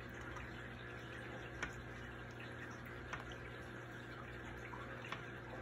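Aquarium water trickling steadily over a faint low hum, with three small sharp drips or plinks spread through it.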